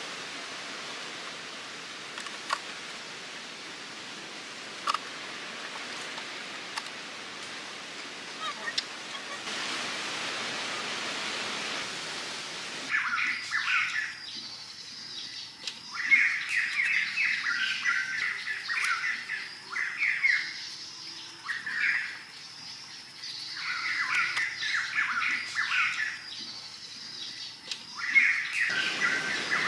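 A steady hiss with a few light taps, then, from about halfway in, small birds chirping in quick repeated bursts.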